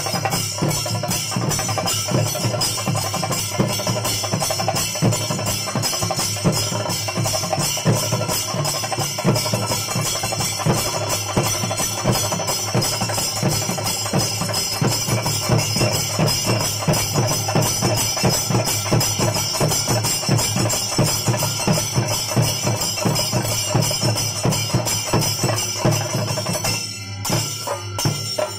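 Kerala temple percussion ensemble playing a fast, dense rhythm: chenda drums struck with sticks over continuously clashing ilathalam cymbals. The playing briefly thins near the end.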